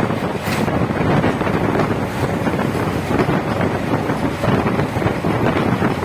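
Passenger train running at speed, heard from on board: a steady rumble and rattle of the coaches on the track, with many small knocks and wind buffeting the microphone.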